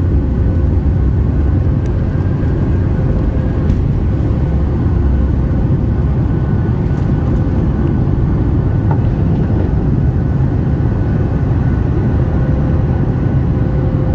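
Jet airliner heard from inside the cabin during takeoff: the engines run at takeoff thrust with a loud, steady low rumble and a steady whine, through the end of the takeoff roll and lift-off.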